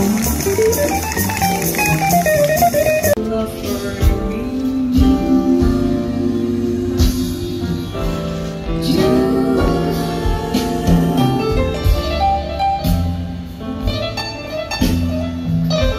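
Live jazz band playing, with an upright double bass, drum kit, guitar and keyboard, and singing. A bright wash of cymbal-like hiss sits over the first three seconds and cuts off abruptly, after which strong bass notes and drum hits carry on.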